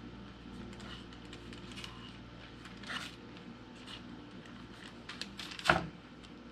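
Small kitchen knife scraping and tapping against parchment paper on a wooden board as it cuts around and loosens a shape in soft cookie dough, with light paper rustles. Near the end there is a louder single knock on the board.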